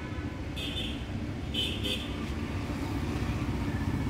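Road traffic rumbling steadily, with three short high-pitched beeps about a second in.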